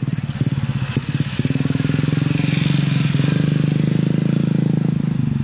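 Motorcycle engine running close by, steady, with a rapid even pulse; a few short knocks in the first second.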